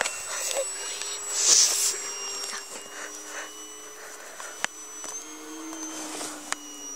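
Electric motor and propeller of a Durafly T-28 Trojan RC model plane in flight: a steady whine whose pitch shifts slightly about five seconds in. A short rush of noise comes about one and a half seconds in, and two sharp clicks come later.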